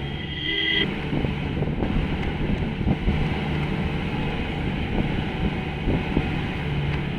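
Off-road jeep engine running as it climbs a badly rutted dirt track, with irregular knocks and jolts from the bumps, sharpest about three and six seconds in, and wind buffeting the microphone. A brief high tone sounds in the first second.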